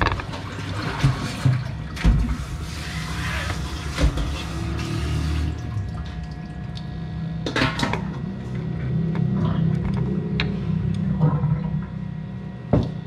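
Water splashing and running off as boiled pork belly is lifted out of its pot of cooking water with chopsticks, over a steady low hum. A few sharp clicks of wooden chopsticks knocking against the pot and a ceramic plate.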